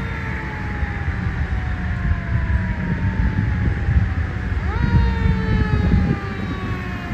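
Fire engine siren approaching from down the street, its pitch falling slowly, then winding up quickly about two-thirds of the way in and falling away again, over a low rumble.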